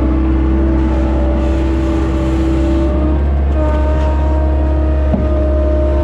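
John Deere skid steer's engine running steadily under work, with a whine riding over it that changes about three seconds in, and a single clunk about five seconds in.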